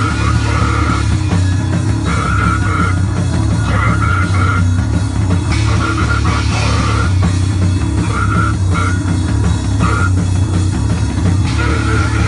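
A grindcore band playing live in rehearsal: heavily distorted guitar and bass with drums, a loud, dense wall of sound with short riff figures repeating.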